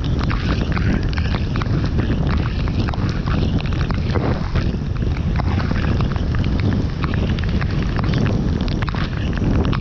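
Car driving on a wet road: a steady rumble of tyres and wind noise, with many small clicks throughout.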